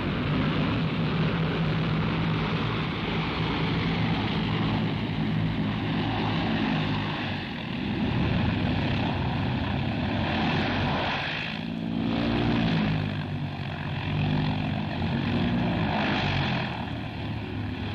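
Bristol Brabazon's eight Bristol Centaurus radial engines and contra-rotating propellers running steadily as the airliner rolls along the runway after landing, with a change in engine tone about twelve seconds in.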